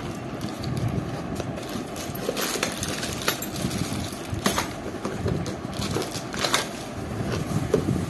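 A cardboard box and its plastic and paper wrapping rustling and crinkling by hand, with scattered sharp clicks, as an electric door lock is unpacked.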